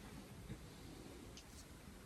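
Near silence: quiet room tone with one soft knock about half a second in and a couple of faint light ticks later on.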